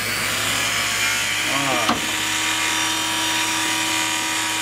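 Small high-speed electric motor of a handheld power tool running steadily. Its pitch wavers briefly and there is a click about two seconds in.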